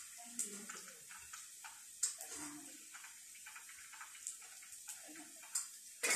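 Eggplant slices frying in oil in a frying pan, with sharp pops of spattering oil every second or two over a soft steady sizzle.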